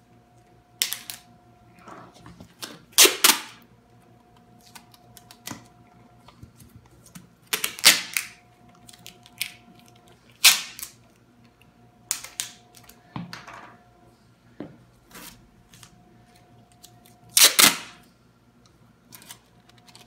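Strips of adhesive tape pulled off the roll and torn off in quick bursts, about eight times with pauses between. The longest and loudest pulls come about 3 seconds in and near the end.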